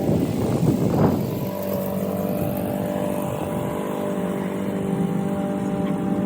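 Honda engine of a Toro Recycler 22-inch walk-behind lawn mower running steadily under load while mowing, with a brief louder rush of noise in the first second.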